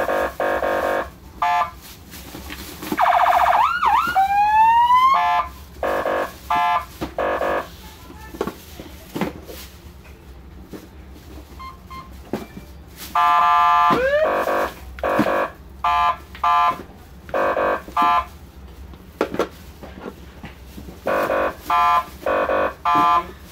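AS830 electronic vehicle siren amplifier sounding through its speaker as it is tested: a series of short electronic tone beeps, with two brief siren sweeps rising in pitch, one about three seconds in and one about fourteen seconds in.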